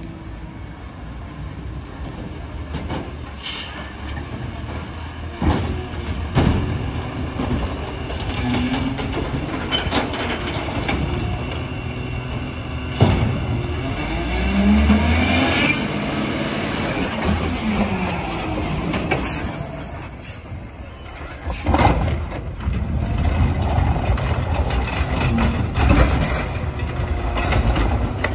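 CNG Peterbilt 320 automated side-loader garbage truck running as it drives up and pulls in, with pitch-gliding machinery sounds in the middle. Near the end its hydraulic arm lifts a recycling cart, with sharp clanks and thumps.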